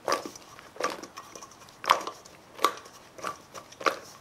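Sliced zucchini tossed in a stainless steel mixing bowl, about six times. Each flip lands with a wet knock and a short metallic ring from the bowl.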